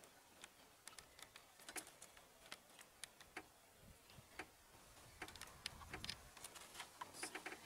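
Near silence broken by faint, irregular sharp clicks, with a low rumble about four seconds in and again around six seconds.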